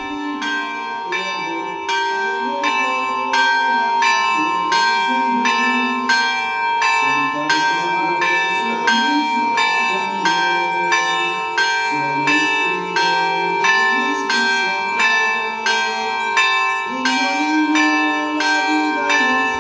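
Church bells pealing, struck in a steady, even rhythm of about two strokes a second, each stroke ringing on over the next.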